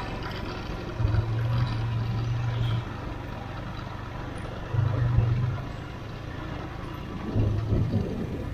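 Motorcycle engine running on the move, with wind noise on the microphone; the sound swells three times for a second or two each.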